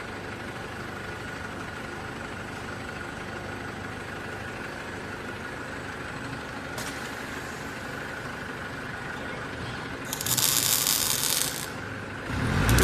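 Robotic arc welding on a bed frame. A steady machine hum with a faint high whine runs first. About ten seconds in, the welding arc gives a loud hissing crackle for about a second and a half. Another weld starts near the end, with a low rumble under the hiss.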